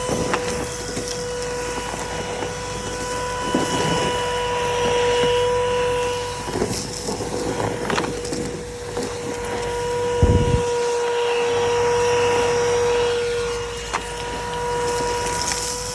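Numatic Bertie vacuum cleaner running with a steady, loud motor whine while hoovering, with intermittent rattles and a dull thump about ten seconds in.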